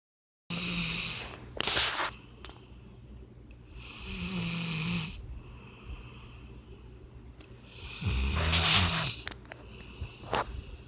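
Puppy snoring in its sleep like a person: three slow, drawn-out snores about four seconds apart, each a low buzzing tone under a hissy breath, with a short sharp snort near the end.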